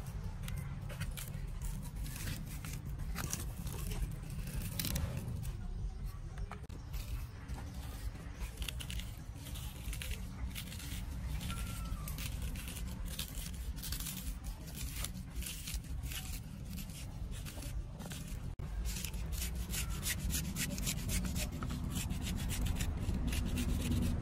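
A small knife scraping and cutting into a fleshy white plant stalk as its core is hollowed out, in many short scrapes and clicks that come thickest in the middle.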